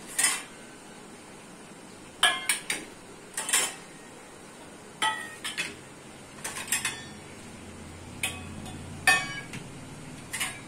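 Stainless steel saucers and dishes clinking and clattering as they are lifted from a steel plate rack and set down on the counter, in a string of sharp metallic clanks, some in quick pairs and threes.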